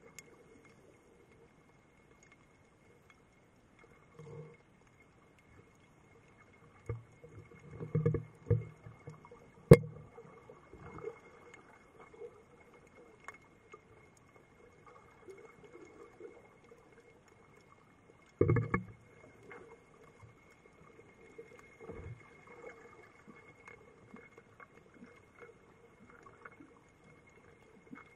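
Muffled underwater knocks and bumps heard through a camera's waterproof housing, over a faint steady whine. The thumps cluster about eight seconds in, a sharp click comes near ten seconds, and another burst of knocks comes a little past eighteen seconds.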